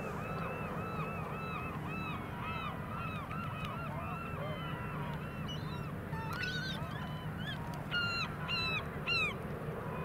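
A flock of geese honking continuously, many overlapping calls a second, with a few louder, closer calls near the end, over a steady low rush of wind and surf.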